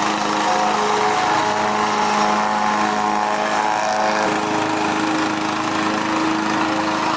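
Riding lawn mower engine running steadily while mowing, its pitch shifting slightly about four seconds in.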